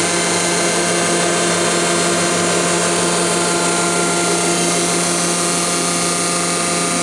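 Steady hum and whir of a powered-up, idling Mazak VCN 410A-II vertical machining center, with several fixed tones held under an even hiss.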